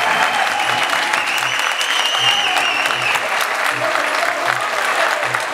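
Crowd applauding and cheering, over background music with a steady low drum beat. A long high whistle runs for about two seconds, starting about a second in.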